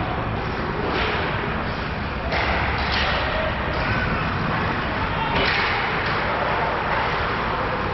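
Ice hockey play in an ice rink: skate blades scraping the ice in several short strokes, with thuds and slaps of puck, sticks and boards, over a steady murmur of spectators' voices.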